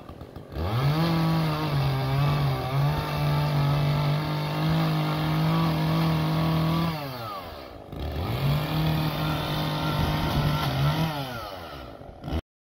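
Small two-stroke chainsaw revved to full throttle twice, first for about six seconds and then for about three. Its pitch dips briefly as it bites into a shrub's trunk, and it drops back toward idle between and after the runs.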